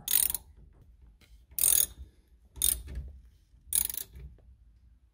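Hand ratchet clicking in four short bursts about a second apart, tightening star-drive screws into a GM tilt steering column.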